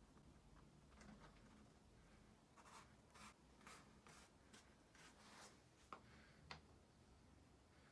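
Faint scratching and rubbing from hands sliding a thin wooden frame against a circular saw's plastic base plate and the tabletop. There are several short scratchy strokes, then two sharper clicks near the end.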